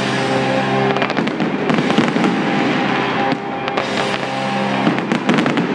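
Aerial fireworks bursting, many sharp bangs and crackles with a rapid cluster about five seconds in, over loud music.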